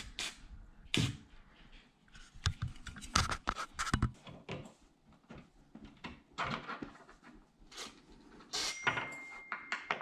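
Aerosol dry lubricant with Teflon sprayed in short hisses through its straw onto a door hinge pin, the longest hiss near the end, with handling clicks and knocks on the can and the metal hinge.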